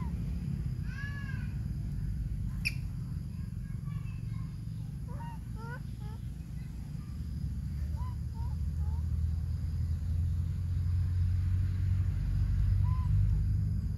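Short high chirping animal calls, now single, now in quick runs of three or four, over a steady low rumble that grows louder near the end. One sharp click about three seconds in.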